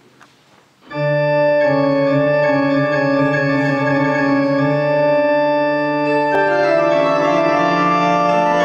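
Organ entering about a second in with sustained full chords in a plein jeu registration, the opening of a French Baroque plein jeu, the held chords moving to new harmonies every second or two.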